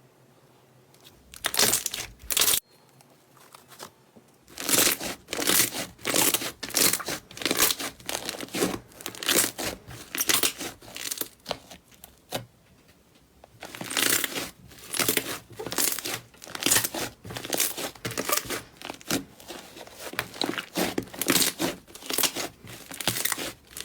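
Slime being squeezed and pressed, giving a run of short, uneven squishing crackles at about two or three a second, broken by two brief pauses.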